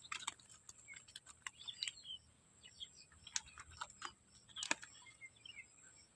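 Faint scattered clicks and taps, with small birds chirping now and then.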